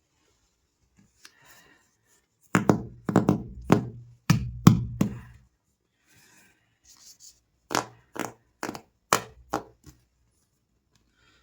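A knife chopping through a bar of soap on a hard surface: two runs of quick, sharp cutting strokes, about eight in the first and six in the second, with a pause between.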